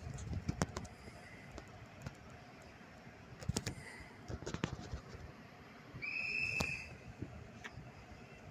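An approaching regional train sounds one short, high, steady whistle about six seconds in, lasting about a second. Under it are a low rumble and scattered knocks.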